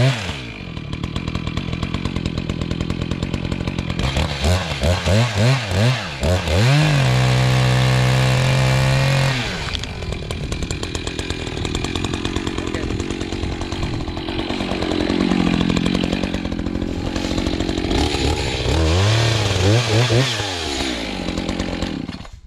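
Two-stroke chainsaw cutting through a hardwood log. The engine is blipped up and down in quick revs, held at full throttle for a couple of seconds, then runs under load in the cut. It cuts off suddenly just before the end.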